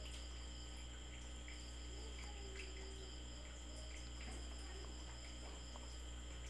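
Faint room tone: a steady low electrical hum with thin, steady high-pitched whines over it, and a few faint scattered ticks.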